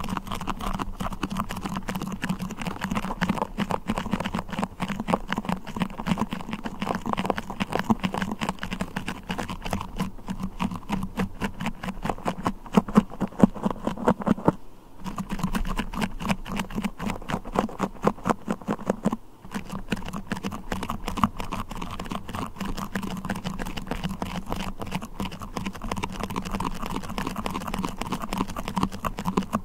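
Sticky beeswax and a sticky crawler toy handled by fingers, making a dense, fast stream of tacky clicks and crackles that pauses briefly twice, about 15 and 19 seconds in.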